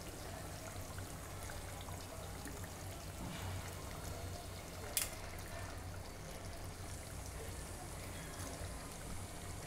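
Half-cooked chicken curry simmering steadily in a pot on the stove while par-boiled rice is spooned on top, with one sharp tap about five seconds in.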